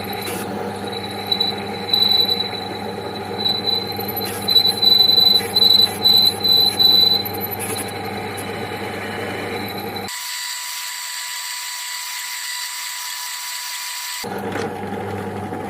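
Small electric motor running steadily with a high-pitched squeal that swells in a series of short, loud pulses from about one to seven seconds in.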